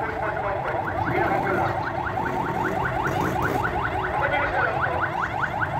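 An electronic alarm sounding quick rising chirps, repeated several times a second without a break, over a steady street-crowd background.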